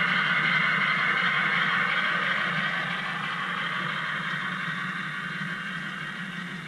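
Long HO scale model freight train rolling along the layout track, a steady rushing wheel-on-rail noise that slowly fades as the train moves away.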